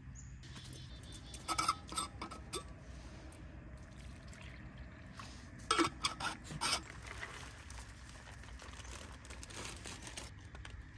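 Dog bowls and an insulated bottle being handled, with two bursts of clinks and clatters, followed by a soft pour into a collapsible silicone dog bowl.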